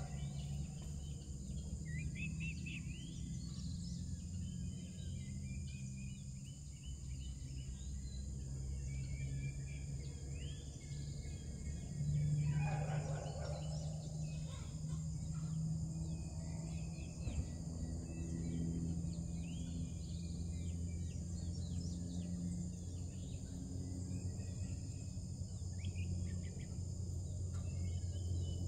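Farm poultry and other birds calling over a steady low hum: many short chirps throughout, with one louder, longer call about twelve seconds in.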